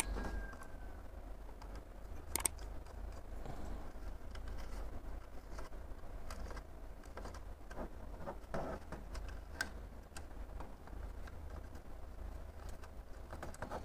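Scattered light clicks and taps of a plastic thermostat housing being handled while its top screw comes out and the front cover is unclipped, over a low steady hum.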